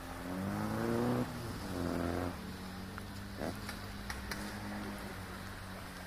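A vehicle engine running steadily, with two short pitched sounds over it in the first two seconds, the first rising in pitch and stopping abruptly, followed by a few sharp clicks.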